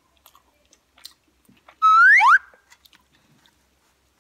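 Faint clicks of chewing and of a spoon while eating, broken about two seconds in by a loud, brief, rising whistle-like squeal lasting about half a second.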